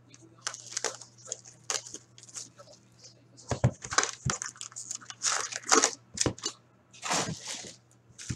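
Plastic shrink wrap crinkling and tearing off a cardboard box of hockey cards, then the box and its foil card packs handled, in an irregular run of rustles and crackles with a few harder knocks.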